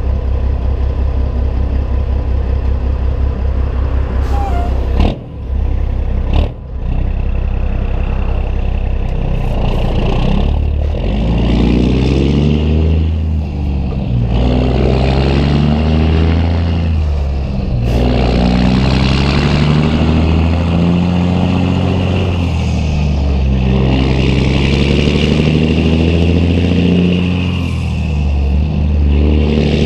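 A Caterpillar 3406E inline-six diesel in a 1998 Peterbilt 379 with 7-inch straight pipes idles, then pulls away under a heavy load of about 100,000 lb gross. The exhaust note climbs and drops again and again as it works up through the gears. Two brief sharp sounds break the idle about five and six and a half seconds in.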